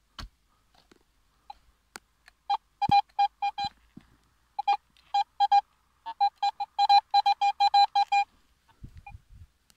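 Metal detector beeping in three runs of short, rapid tones at one steady pitch as the coil is swept back and forth: the signal of a buried metal target under the coil.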